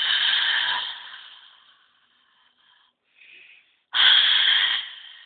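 A spooky breathy, hissing ghost or monster voice sound, heard twice, each loud at first and fading away over about a second, with a fainter breath between them.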